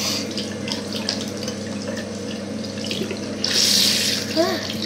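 Bathroom tap running into a basin, with hands being washed under the stream. The splashing grows louder about three and a half seconds in.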